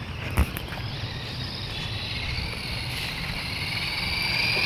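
Toy-grade RC car's small electric motor whining at a steady high pitch, growing louder as the car drives closer. A single sharp click comes about half a second in.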